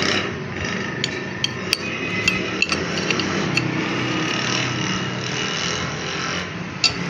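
Light hammer taps on metal, about eight irregular strikes, over the steady hum of running workshop machinery.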